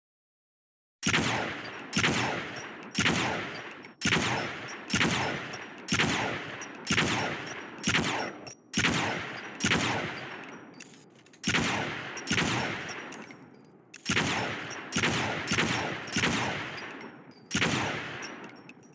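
Heckler & Koch HK33SG/1 rifle (5.56×45mm) firing single shots, about one a second, each shot trailing off in an echo before the next.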